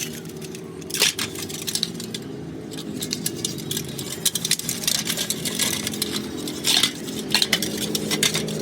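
Small metal parts and tools clinking and clattering as they are handled, a string of irregular sharp clicks; the loudest comes about a second in and another near seven seconds.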